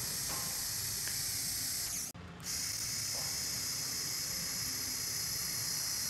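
TIG welding arc on a stainless steel nozzle, run without filler rod: a steady high hiss that breaks off briefly about two seconds in. The arc is heating one side of the weld so that it shrinks and straightens a tilted ferrule.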